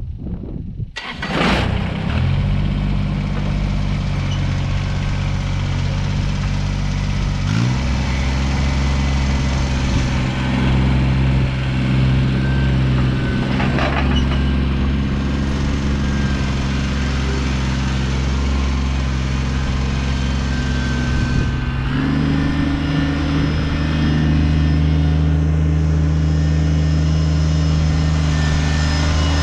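Kubota BX25 subcompact tractor's three-cylinder diesel engine starting about a second in, then running steadily. Its engine note changes about a third of the way through and rises again near the end as the throttle is moved.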